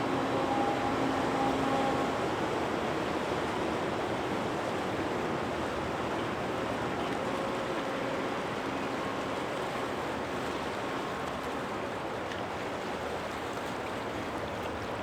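Steady rushing wash of water, with a few faint, brief tones over it; it cuts off abruptly at the end.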